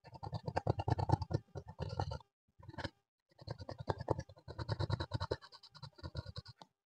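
Clear slime being kneaded and squeezed by hand as makeup is mixed in: rapid sticky crackling and popping clicks. The sound comes in two long bouts, with a brief pause about three seconds in.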